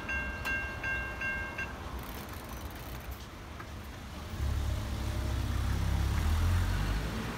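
Safetran Type 3 electronic level-crossing bell ringing at about three dings a second, then stopping about two seconds in as the boom gates lift: the crossing is clearing after the train. From about halfway through, a car's engine and tyres rumble louder as road traffic moves over the crossing.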